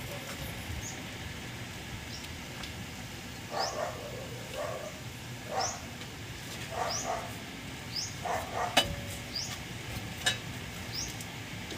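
Background animal sounds: short rising high chirps about once a second, like a small bird's, with several louder mid-pitched animal calls in the middle. Two sharp clicks near the end.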